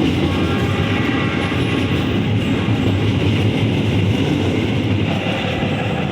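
Argo Parahyangan passenger train running past close by: a loud, steady rumble of wheels on the rails that eases slightly near the end.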